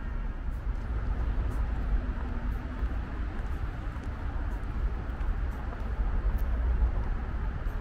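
City street ambience: steady noise of passing traffic with a low rumble underneath.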